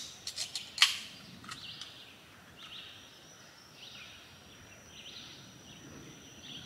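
Aluminium soda can cracked open by its pull tab: a sharp click, a few snaps and a short fizz, all within the first second. Then birds chirping on and off over a steady, high insect whine.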